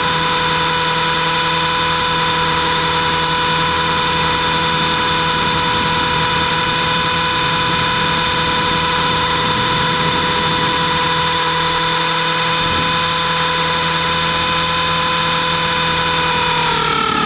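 Electric T-Rex 450-clone RC helicopter in flight, heard from its onboard camera: a steady high whine from the motor and rotor drive at constant head speed. Just before the end, the pitch starts to fall.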